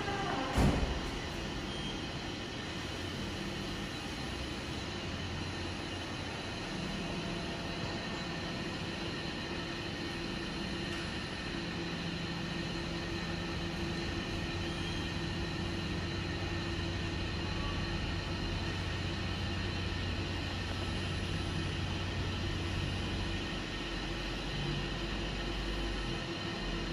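LK bridge-type coordinate measuring machine running with a steady machine hum, its low drive tones coming in several seconds along and dropping away near the end as the touch-trigger probe is moved around the metal ring. A single sharp knock just after the start.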